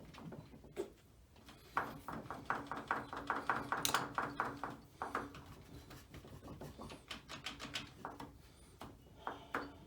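Hand tools working the shift selector shaft of an ATV engine: a rapid run of light metal clicks, about six or seven a second, with one sharper click midway and fainter ticks afterwards, as the stuck shaft is pried at.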